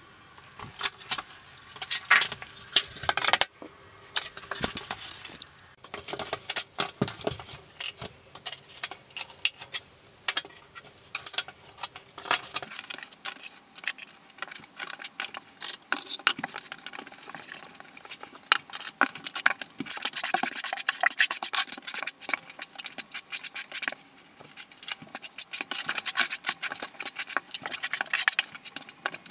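Tiling work: a notched trowel scraping and spreading thinset, and hexagonal mosaic tile sheets being set and pressed down, heard as a dense, irregular run of quick scrapes and ticks that is busiest in the second half.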